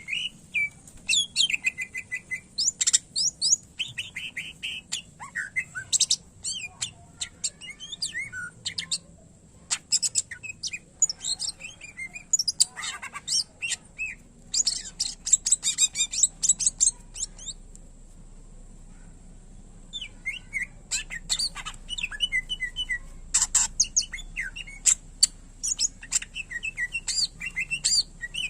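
Greater green leafbird (cucak ijo) singing a fast, varied song of sharp chirps, rapid trills and whistled glides, with a pause of about two seconds in the middle.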